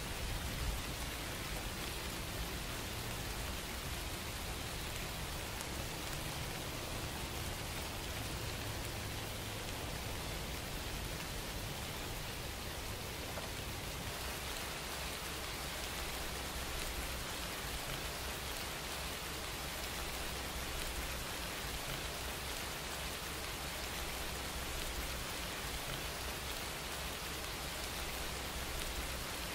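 Steady, even hiss with a low rumble beneath it, unchanging throughout.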